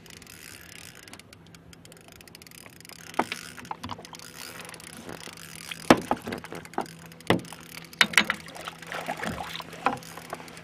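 Water splashing and sharp, irregular knocks of a landing net against the boat as a hooked trout is brought to the net, the knocks starting a few seconds in and coming thickest near the end, over a faint steady hum.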